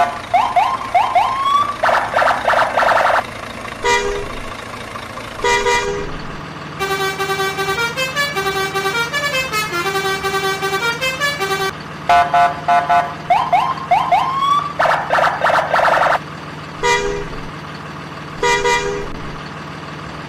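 A string of vehicle horn sound effects: pitched honks, short rising siren whoops and loud blaring blasts, with a multi-tone horn playing a short stepping tune in the middle. The honk-and-whoop part repeats after about twelve seconds.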